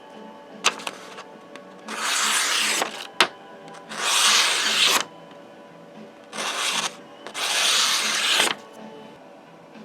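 Spyderco Native 5 knife blade being sharpened: four hissing strokes of the edge along a fine abrasive, each about a second or less, with two sharp clicks between them. This is the finishing stage of sharpening toward a near-mirror polish at 17 degrees per side.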